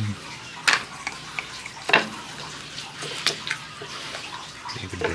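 Wet rubbing and handling of raw fish being coated in a turmeric-and-salt paste in a stone mortar. A few light taps and clicks come at irregular moments as the fish are turned and set down.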